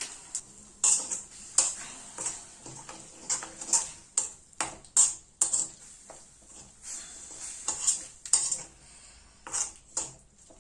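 A spoon scraping and knocking against a kadhai while ginger paste is stirred as it cooks, in irregular strokes about twice a second.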